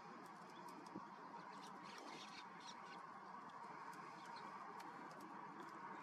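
Sparrows chirping faintly, with a quick cluster of chirps about two seconds in, over a steady low hiss.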